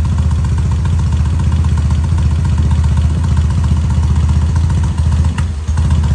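Vintage British motorcycle engine idling steadily on its first start after fresh piston rings; the rings are not yet settled and it is still smoking from one side. The running briefly dips about five seconds in.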